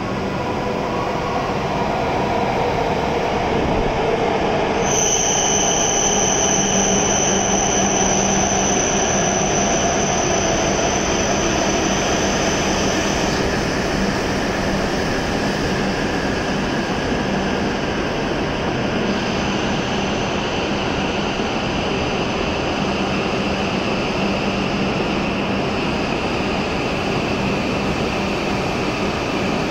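W7 series Shinkansen train pulling into the platform and slowing, its cars rolling past with a steady rumble. A falling whine runs through the first several seconds, and a high-pitched squeal starts about five seconds in and stops around thirteen seconds in.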